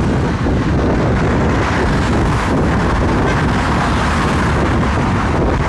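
Wind buffeting a phone's microphone: a loud, steady rush of noise, heaviest in the low end, with no breaks.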